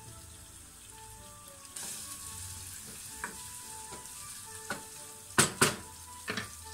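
Diced zucchini and shallot sizzling in oil in a small saucepan while being stirred with a spoon. The sizzle grows louder a couple of seconds in, and the spoon knocks against the pan a few times, with two loud knocks close together near the end.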